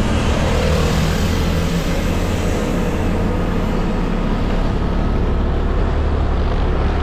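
Steady rumble of a moving vehicle, road and engine noise, without a break.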